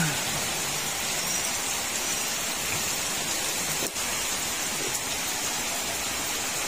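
Steady rushing hiss of water: heavy rain together with fast-flowing floodwater.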